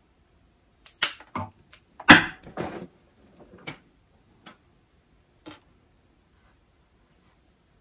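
Scattered clicks and knocks of small wiring parts and hand tools being handled on a wooden table. The loudest is a cluster about one to three seconds in, a few sharp clicks and then a fuller clatter, and single clicks follow.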